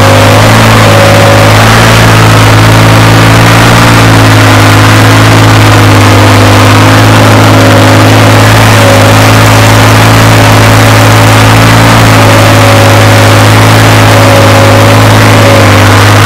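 New Holland 3630 tractor's diesel engine, modified with a tuned fuel pump and turbo, running loud and steady at a raised speed while the tractor stands still.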